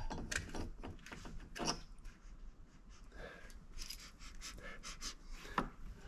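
Faint, scattered light clicks and taps as gloved hands handle the metal parts of a diesel heater's burner and fan assembly, with soft breathing between them.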